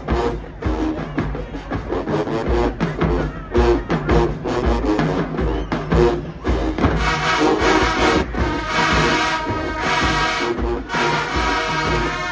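Marching band playing, with bass drums keeping a steady beat under low brass. About seven seconds in, the full brass section comes in loud with sustained chords.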